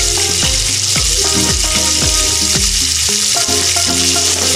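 Crab bodies sizzling steadily in hot mustard oil in a kadai, frying lightly shell side down. Background music with a bass line plays underneath.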